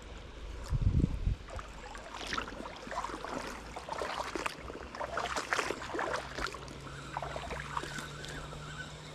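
Fast-flowing creek water rushing and gurgling, with irregular small splashes and a low thump about a second in.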